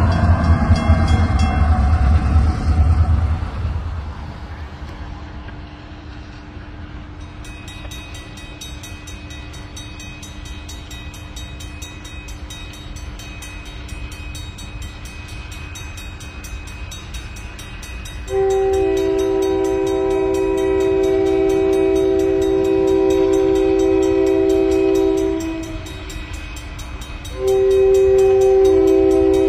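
Multi-note air horn on a freight train's caboose, sounded for a grade crossing as the train backs toward it. One long blast of about seven seconds, a short pause, then a second long blast starting near the end, after a low rumble that fades in the first few seconds.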